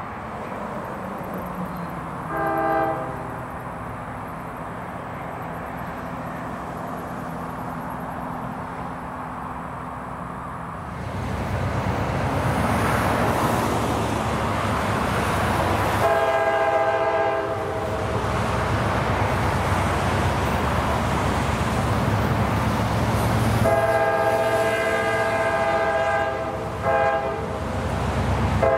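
Diesel freight locomotives approaching, their engines rumbling and growing much louder about a third of the way in. The train's air horn sounds a short blast a couple of seconds in, a longer blast past the middle, and a long blast near the end, broken briefly once.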